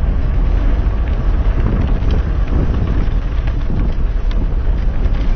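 Wind buffeting a helmet-mounted GoPro's microphone during a mountain bike ride on a dirt trail: a steady, heavy low rumble, with scattered light clicks and rattles from the bike and its tyres on the trail.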